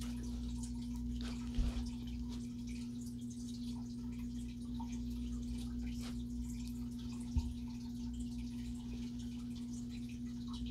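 A steady low hum, with two brief soft knocks, one a little over a second and a half in and one about seven seconds in.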